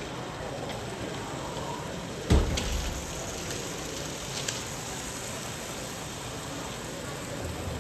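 Steady noisy background hiss with one loud thump a little over two seconds in, followed by a brief low rumble, and a few faint clicks.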